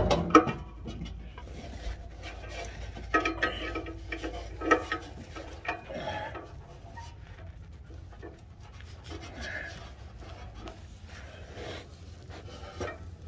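Rubbing and scraping with scattered light clicks: an adjustable wrench and a sleeve working against metal in a tight space under a car. The wrench keeps slipping off the oxygen sensor. The scrapes come in short bursts, busiest in the first half.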